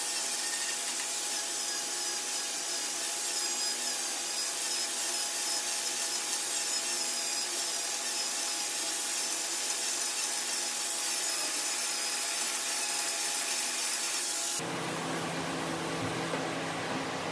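Handheld abrasive cut-off wheel cutting through the steel of a car's damaged A-pillar: a steady high grinding hiss with a motor whine underneath. It stops abruptly near the end, giving way to a lower steady hum.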